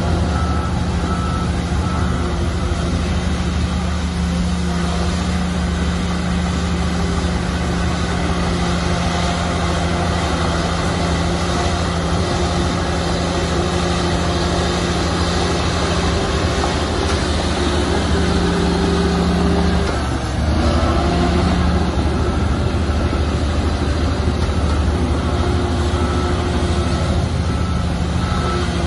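Shantui bulldozer's diesel engine running steadily under load, its note dipping briefly about twenty seconds in and then picking up again. A reversing alarm beeps near the start and again near the end.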